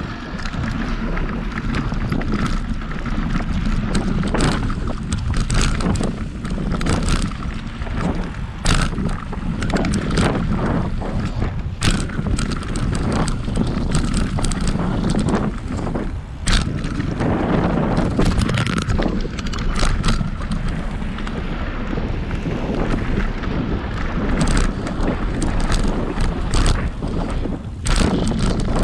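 Mountain bike riding fast down a dirt trail: wind buffeting the microphone and knobby tyres rumbling over the ground, with frequent irregular clacks and rattles as the bike hits bumps.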